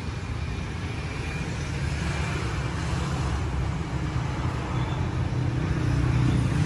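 Street traffic noise: a steady low rumble of passing road vehicles, growing louder near the end.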